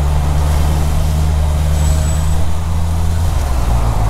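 Honda CB650R's inline-four engine running at low speed while crawling through stopped traffic. It gives a steady low note that shifts slightly about three seconds in.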